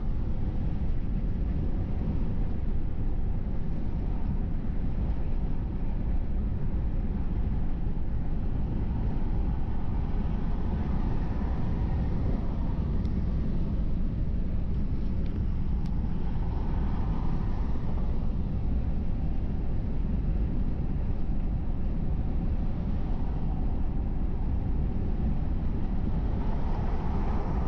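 Steady road noise of a car driving on a freeway: a deep rumble of tyres and engine, swelling gently a few times.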